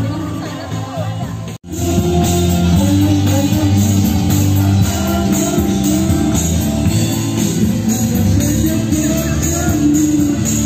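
Background music with a steady beat. It cuts out briefly about a second and a half in, then comes back louder.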